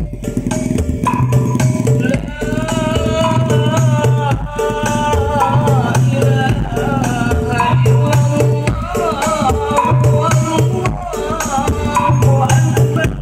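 Loud music with a steady percussion beat, heavy bass and a melody, played through a truck-mounted parade sound system.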